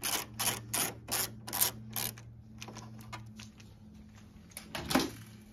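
Screwdriver backing screws out of a printer's metal fuser-side bracket: a quick, even run of clicks, about three a second, that thins out after about two seconds, with a few more clicks near the end. A low steady hum lies under it.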